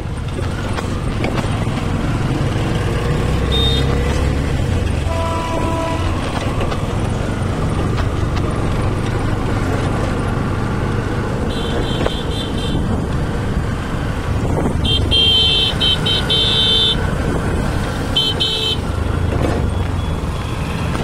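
Auto rickshaw engine running with road and traffic noise, heard from inside the moving rickshaw. Vehicle horns beep several times in the second half, one of them held for about two seconds.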